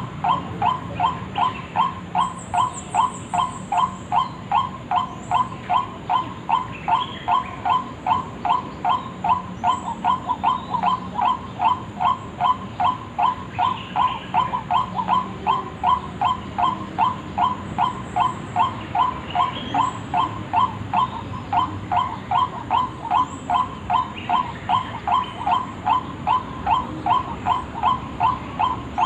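White-breasted waterhen lure call: one harsh note repeated evenly about twice a second without a break, the monotonous calling used to draw the bird in. Faint high chirps from other birds sound now and then over it.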